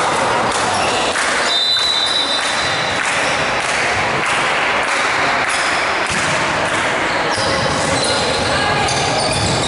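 Indoor volleyball play echoing in a large gymnasium: repeated ball hits and thuds with players' voices, and a brief high squeak about two seconds in.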